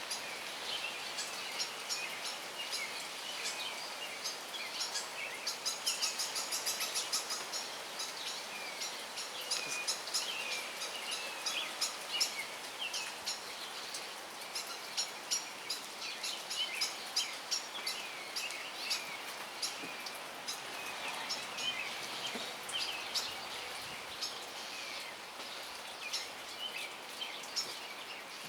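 Small songbirds chirping and calling repeatedly, many short high chirps overlapping, over a steady background hiss.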